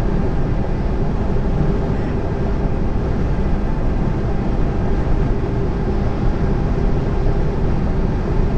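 Steady drone of a lorry's diesel engine and tyre noise at motorway cruising speed, heard inside the cab.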